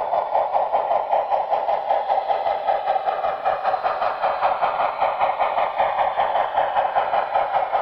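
Sound decoder of an HO-scale Texas & Pacific 2-10-4 steam locomotive model playing steam exhaust chuffs through its small onboard speaker as the model runs, a steady beat of about three to four chuffs a second.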